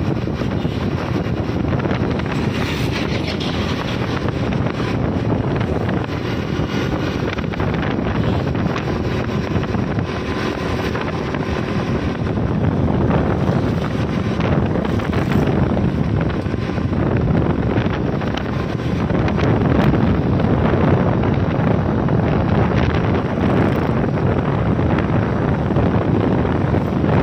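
Wind rushing over the microphone of a moving motorcycle, a loud, steady roar, with the motorcycle's running mixed into it.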